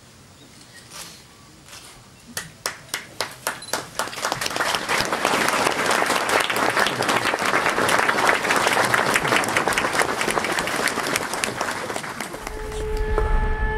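Crowd applauding: a few separate claps at first, quickly swelling into dense, steady applause. Near the end a low boom and held musical tones of a music sting come in.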